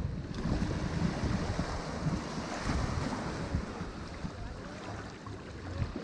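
Sea waves breaking and washing onto a beach: a continuous rushing surf noise that swells and eases.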